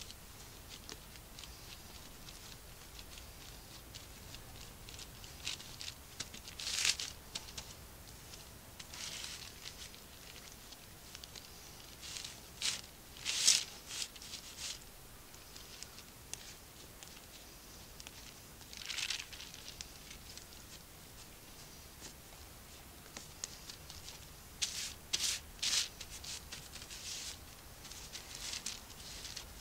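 A dough scraper and spoon scraping and rubbing over floured baking paper as proofed bread dough is folded and shaped. The scrapes are short and come in scattered groups, with a quick run of several near the end.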